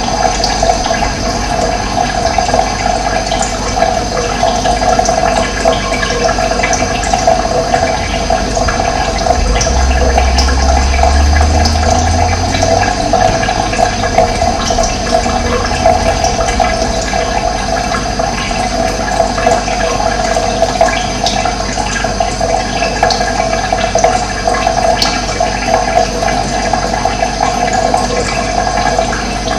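Running water flowing steadily, an even rushing noise that does not change, with a low rumble for several seconds about ten seconds in.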